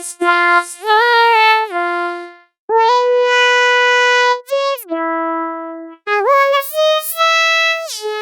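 Speech-synthesizer singing: a synthetic voice holds long notes and slides between pitches in three short phrases, with bursts of hiss at the starts of some notes.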